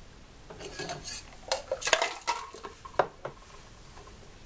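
Metal cocktail shaker tins clinking together, with ice rattling inside, as the shaker is opened and handled after shaking. There is a quick run of clinks and clatters, the sharpest about three seconds in.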